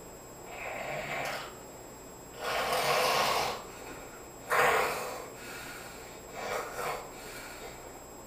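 A sleeping person snoring: four snores about two seconds apart, the longest and loudest about three seconds in, the next one starting abruptly.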